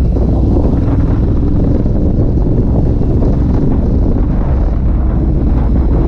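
Wind buffeting the microphone of a moving motorcycle, steady and loud, with the L-twin engine of a 2016 Ducati Multistrada 1200S with a Termignoni racing exhaust running underneath at a steady pace.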